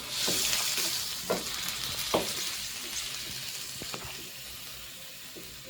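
Chopped tomato and onion sizzling in hot oil, loudest at the start and slowly dying down, with a few light knocks in the pan.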